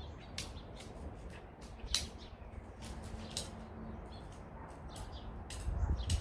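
Light, irregular clicks and clinks of swag hoop-pole sections being handled and fitted together, over a low background rumble that swells near the end.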